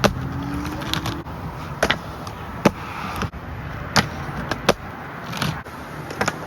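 Skateboard wheels rolling on hard ground with a steady rumble, broken by several sharp, irregularly spaced clacks of the board.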